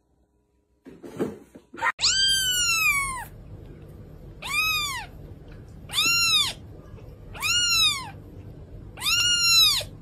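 Tiny kitten meowing: five high-pitched cries, starting about two seconds in and coming roughly a second and a half apart, the first one the longest.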